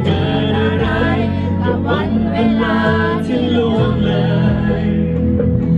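Live pop ballad through a concert sound system: a male singer's voice over band backing.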